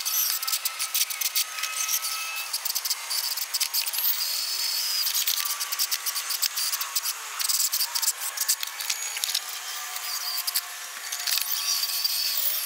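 1/10 scale RC rock crawler driving: a thin electric motor whine that shifts in pitch with throttle, over steady clicking and crunching of tyres on rocks and gravel.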